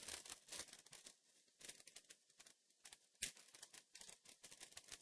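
Faint crinkling and rustling of plastic minifigure packaging being handled and opened, with one sharper click about three seconds in.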